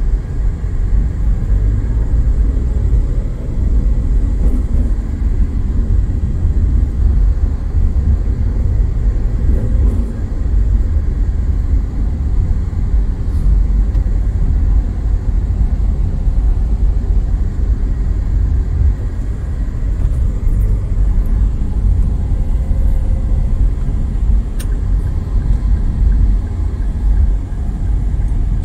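A car driving along, heard from inside the cabin: a steady low rumble of engine and tyre noise.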